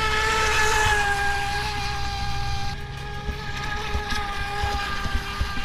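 Brushless electric motor of a 17-inch DEERC RC speedboat whining steadily at speed, with the hiss of spray from the hull. The whine dips slightly in pitch about a second in.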